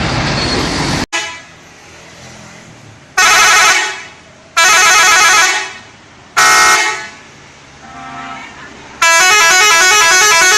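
Loud rushing noise that cuts off abruptly about a second in, then an Indonesian bus telolet horn, a multi-tone musical horn, sounding four blasts: three short ones and a last one of about two seconds playing a stepping up-and-down melody.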